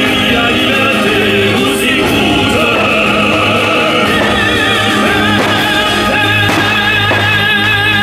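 Music with a singer holding long notes with a wide vibrato, operatic in style, over an instrumental backing.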